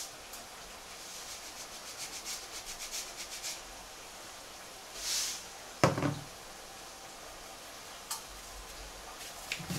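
Salt being shaken from a container into a jug of chopped herbs: short hisses and a quick patter of grains. About six seconds in the container is knocked down on the worktop, with a lighter knock near the end.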